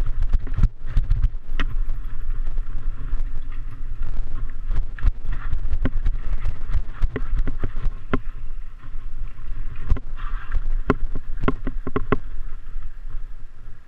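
Mountain bike rattling over a rough trail on a downhill run, with many irregular sharp knocks from rocks and bumps over a steady low wind rumble on the microphone.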